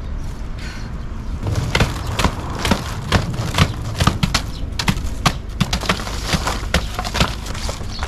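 Stiff cardboard sheets being handled and stacked by hand: irregular knocks, slaps and crackles, several a second, over a steady low rumble.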